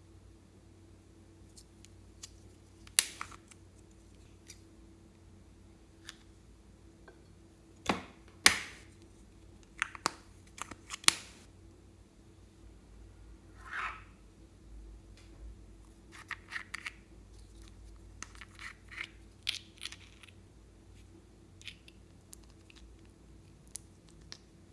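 Small hard plastic containers handled and opened: scattered sharp clicks and taps of lids and cases, loudest in a cluster about a third of the way in, followed by softer short scrapes as a metal pick digs into a makeup compact.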